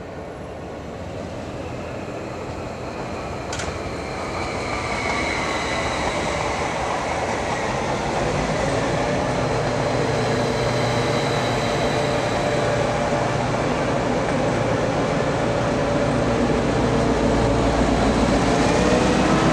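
NOHAB M61 diesel locomotive's EMD two-stroke V16 engine running as it draws a passenger train in, growing steadily louder as it comes up alongside and passes close by. One sharp click about three and a half seconds in.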